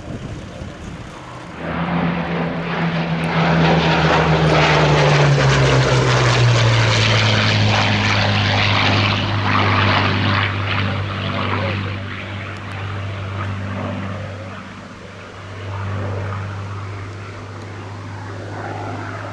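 Hawker Sea Hurricane's Rolls-Royce Merlin V12 engine and propeller in a low flypast. It swells in about two seconds in and drops in pitch as the aircraft passes, then carries on at the lower pitch while receding.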